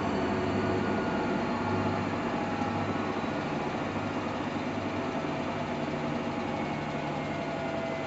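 Samsung Eco Bubble front-loading washing machine running a wash cycle: a steady motor hum with the drum turning.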